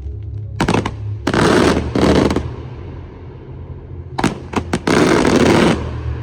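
Fireworks going off in rapid strings of sharp cracks and bangs: short volleys about half a second and a second and a half in, then a longer run of volleys from about four to nearly six seconds in, over a steady low hum.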